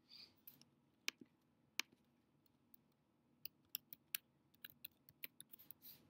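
Typing on a computer keyboard: two single keystrokes in the first two seconds, then a quick run of about a dozen key clicks near the end as a short command is typed.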